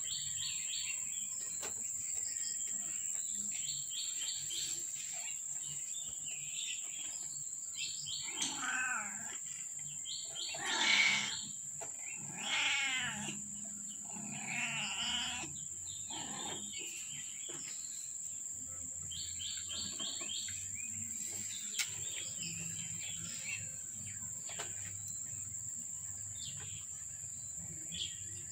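Cat meowing, four calls in the middle stretch with the second the loudest, over a steady high-pitched whine and short repeated chirps.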